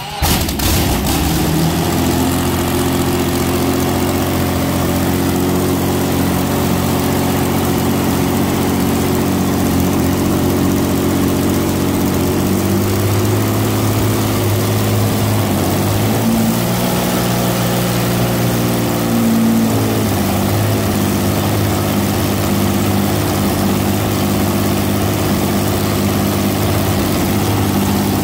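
A Centurion tank's Rolls-Royce Meteor V12 petrol engine running on a test stand at its first start, without its cooling water connected. It runs steadily, its speed picking up a little around the middle and then settling back.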